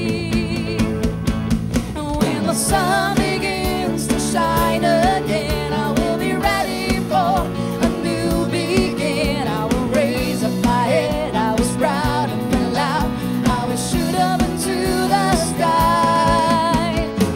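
A live band playing a slow song: a woman sings a melody with vibrato over electric bass and band accompaniment.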